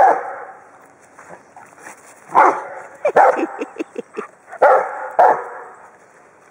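Bouvier des Flandres barking, five single barks spaced a second or two apart, the last four coming in two pairs.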